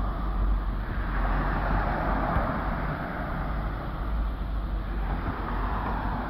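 Steady road noise and rumble of a car driving.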